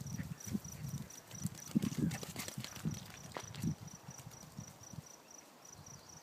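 Cricket chirping in a steady, even pulse, over irregular low thuds and scuffs that die away after about four seconds.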